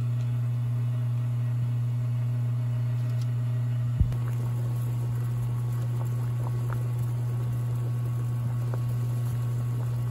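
A steady, unchanging low hum, with a single short knock about four seconds in.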